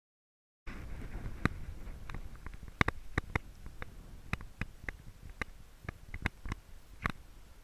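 Irregular sharp clicks and knocks, one to three a second, over a steady low rumble, starting abruptly less than a second in.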